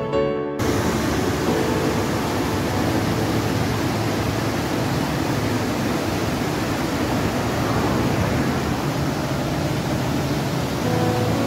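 Background music cuts off about half a second in, giving way to the steady rush of a rocky mountain river running white over boulders, heard from a bridge above it.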